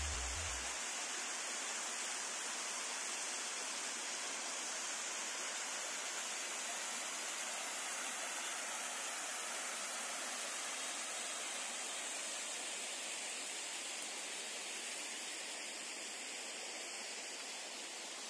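Steady, even rush of falling water, a hissy noise without deep rumble, with the end of a music track fading out in the first second.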